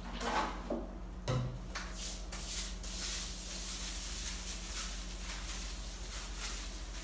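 A squeeze bottle of detergent squirting onto a wet tile floor, and a knock about a second in; then a plastic-bristled broom scrubbing the wet floor tiles in quick back-and-forth strokes.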